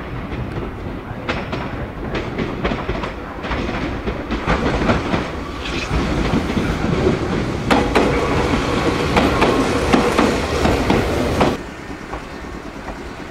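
Meitetsu 1800 series electric multiple unit running slowly over station points, its wheels clacking over the rail joints and crossings, growing louder as it nears. The sound drops away suddenly near the end.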